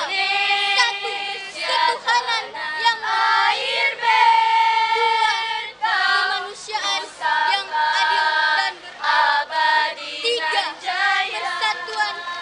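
A group of junior-high schoolgirls singing a Scout cheer song (yel-yel) together, in held, melodic lines.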